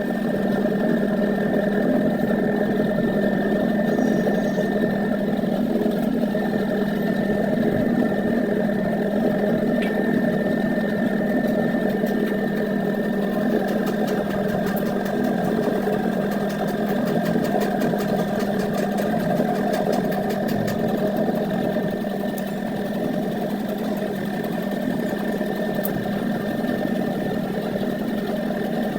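A motor running steadily, a continuous low drone with a thin, steady higher whine, unchanged throughout.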